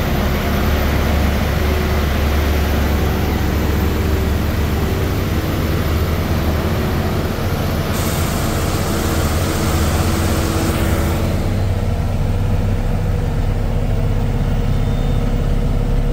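Heavy truck engine pulling steadily under load on an uphill climb, with road noise. A brighter rushing hiss joins about eight seconds in and drops away about three seconds later.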